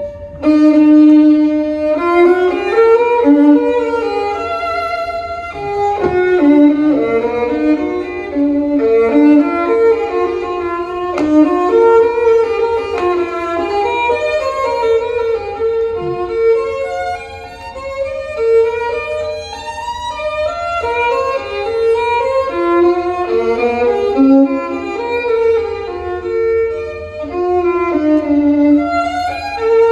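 Violin music played from a vinyl record through a hi-fi system with horn loudspeakers: a bowed melody running continuously, with no voices.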